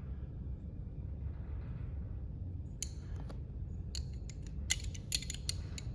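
Light metallic clicks and taps from a hand-forged titanium balisong being handled, its channel handles and blade knocking together. The clicks are scattered, starting about three seconds in and coming more often near the end, over a low steady hum.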